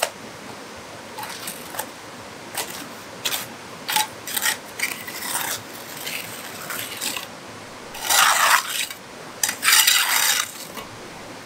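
Steel trowel scraping and spreading cement mortar on a wall, a string of irregular rasping strokes, the two longest and loudest lasting about a second each near the end.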